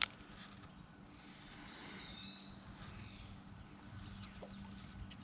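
Quiet creekside ambience with a sharp click at the start, then a bird's thin whistled call, one drawn-out note about a second long, beginning about two seconds in.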